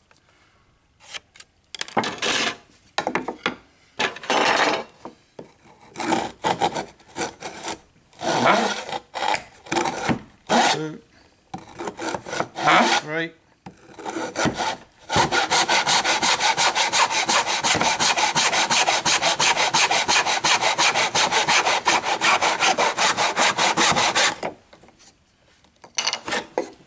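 Hand saw cutting a 12 mm timber strip in a wooden mitre box. Scattered, uneven scraping strokes and handling for the first half, then about nine seconds of fast, steady back-and-forth sawing that stops shortly before the end.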